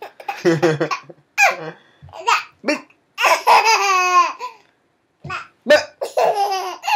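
A baby laughing in repeated short bursts, with one longer laugh about three seconds in that falls slightly in pitch.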